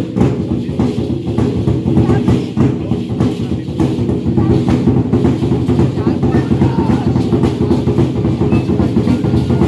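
Maya ceremonial music played on drums: fast, continuous drumbeats over a steady low drone.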